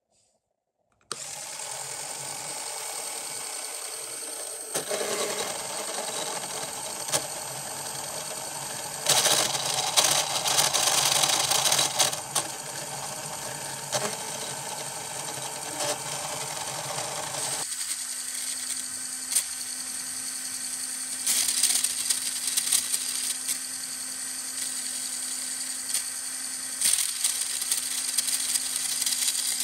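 LEGO Power Functions electric motor switching on about a second in and running steadily, driving a LEGO Technic three-speed gearbox whose plastic gears whir and rattle, louder in several spells. About two-thirds of the way through the sound changes abruptly to a thinner whir with a steady low hum as the gearbox is shifted into another gear.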